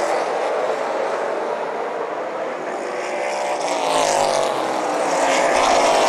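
Outlaw Super Late Model stock cars' V8 engines running at speed in a pack, a steady drone with engine pitch rising and falling as cars sweep past, strongest in the last couple of seconds.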